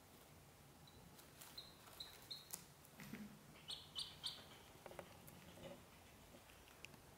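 Ducklings peeping softly: a few short, high peeps, the loudest cluster about four seconds in, with faint ticks and rustles as they shift about in a wicker basket.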